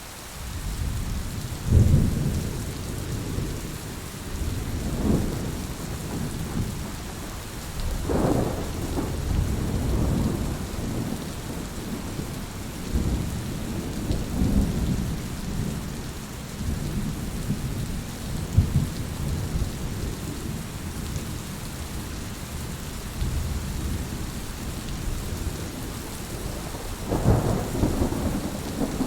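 Heavy rain falling steadily with thunder rumbling throughout. The rumble rolls in right at the start and swells several times, loudest about two seconds in, around eight seconds in, and again near the end.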